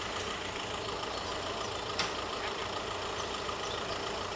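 A vehicle engine idling steadily, with one short sharp click about two seconds in.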